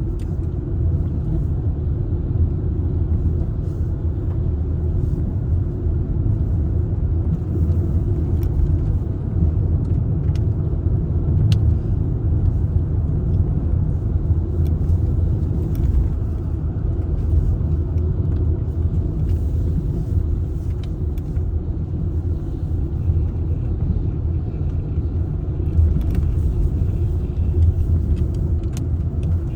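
Steady low rumble of a car driving along the road, heard from inside the car: tyre and engine noise with no change in pace.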